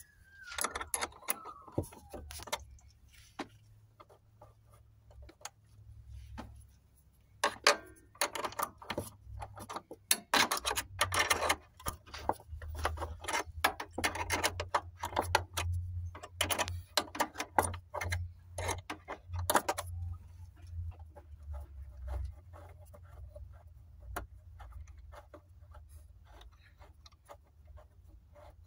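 Metal box-end wrench clicking and clinking on an 8 mm bolt as it is worked loose, in quick irregular runs of clicks that are busiest through the middle and thin out near the end.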